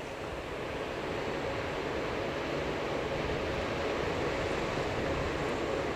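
JR 381 series electric train running past at low speed, a steady rumble that grows gradually louder as the leading car approaches.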